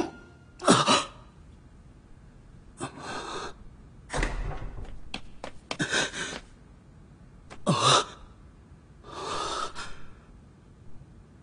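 A man's heavy gasps for breath, the panting of exhaustion: about six separate breaths a second or two apart, a couple of them voiced with a pitch that drops sharply.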